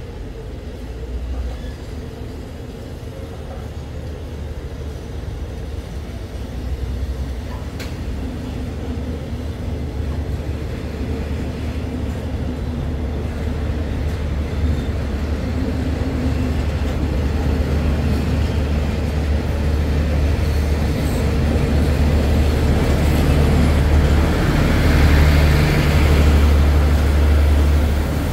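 Thai passenger train coaches rolling past a station platform: a steady low rumble of wheels and running gear on the rails, growing steadily louder, with a rushing noise swelling near the end.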